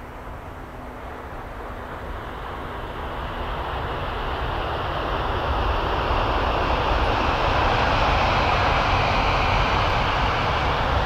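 A Shinkansen train passing at about 256 km/h: a rising rush of air and running noise that swells steadily and is loudest in the second half.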